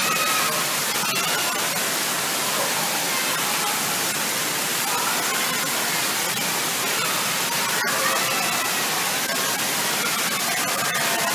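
Steady rushing hiss of water from the pool's fountains and sprays, with faint voices at a few moments.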